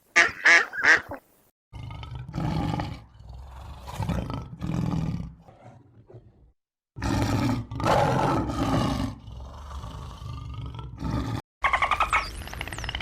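Edited string of animal calls: three short, loud calls within the first second, then a run of deep, rough calls in separate stretches broken by abrupt cuts.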